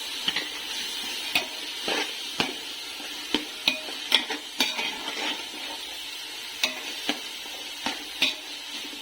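Vegetables, chicken and egg sizzling in hot oil in a wide pan while a spatula stirs them, with a steady hiss and a dozen or so sharp clicks and scrapes of the spatula against the pan.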